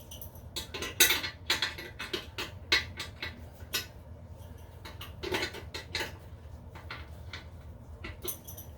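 Metal hand tool clicking and clinking on the nuts of a toilet's tank-to-bowl bolts as they are tightened a little at a time, in an irregular scatter of sharp taps.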